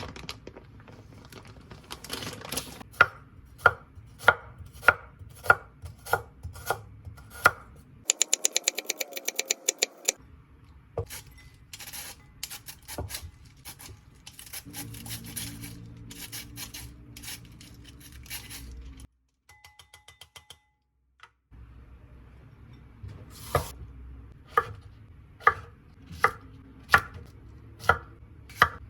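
Kitchen knife chopping food on a cutting board in steady strokes, about one and a half a second, with a quick rapid run of chops about eight seconds in and a short pause past the middle.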